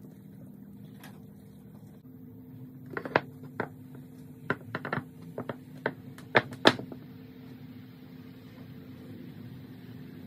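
Hardwood mosaic strips being set down and knocked against each other on a wooden workbench: about ten sharp wooden clacks in the middle seconds, over a steady low hum.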